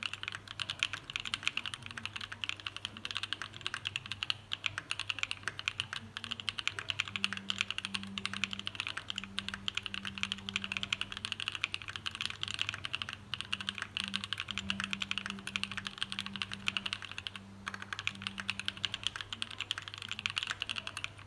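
Fast, continuous typing on a plateless 60% custom mechanical keyboard with linear switches (Tangerine housings with NK Cream stems), O-ring-dampened keycaps and a silicone-dampened aluminium case: a dense stream of key clacks, with a brief pause about seventeen seconds in.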